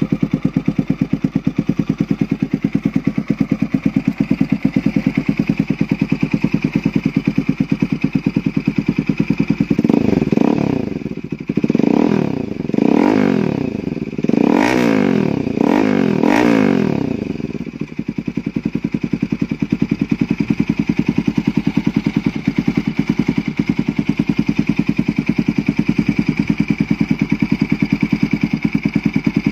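Bajaj Pulsar NS200's single-cylinder engine idling through a newly fitted SC Project aftermarket slip-on exhaust, with a quick run of about six throttle blips, each rising and falling, starting about ten seconds in and lasting some eight seconds before it settles back to a steady idle.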